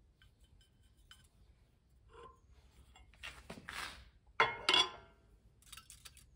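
Steel straight edge being shifted across a cylinder head face: a rubbing scrape, then two sharp metallic clinks a little past halfway as it is set down on the head.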